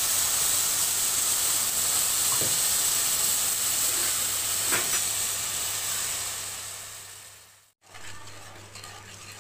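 Water sizzling and hissing in a hot steel pan where it has been poured over sugar. The sizzle is steady, then fades out over the last couple of seconds before a cut. Near the end, the sugar syrup is stirred more quietly with a wooden spatula.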